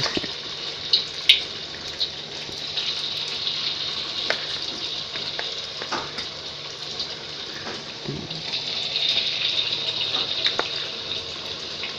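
Batter-coated breadfruit slices deep-frying in hot oil in a wok: a steady sizzling hiss with scattered pops, growing louder about eight seconds in.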